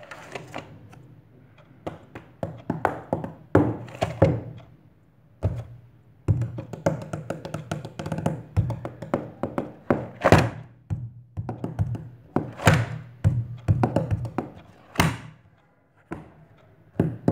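Fingers drumming a fast rhythm on a spiral-bound notebook and a thick book lying on a wooden desk: runs of quick finger taps with a few louder slaps, pausing briefly twice.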